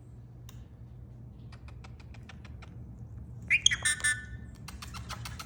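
Pet bird: a run of quick sharp clicks, then a loud squawking call with sliding pitch about three and a half seconds in, then more clicks.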